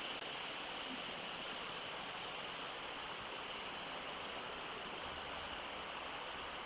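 Steady outdoor hiss picked up by a wildlife live-cam microphone, with a constant high-pitched band running through it and no distinct events.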